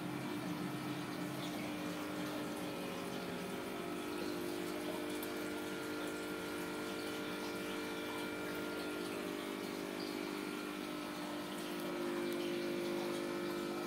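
Steady mechanical hum with an even rushing hiss behind it, a little louder near the end.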